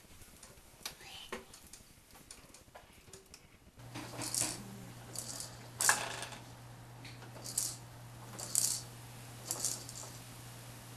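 A plastic baby push-walker's activity panel rattling and clicking in about six short, sharp bursts as a baby plays with it. A steady low hum runs under it from about four seconds in.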